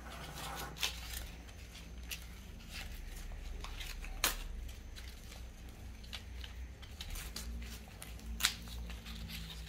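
Green husks being torn and peeled by hand off a small ear of fresh corn: crisp tearing and rustling with a few sharp rips, the sharpest about four seconds in.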